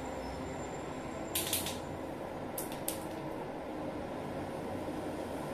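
Steady low room hum. About a second and a half in there is a brief scratchy rustle, and two or three shorter ones follow about a second later.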